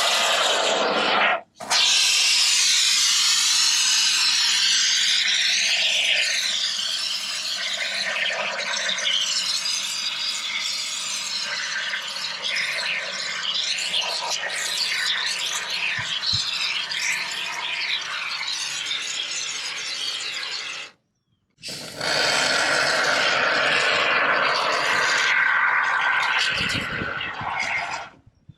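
Two-part expanding foam spraying from a pressurised can: a long, loud hiss that stops briefly about a second and a half in and again around twenty-one seconds in, then trails off near the end.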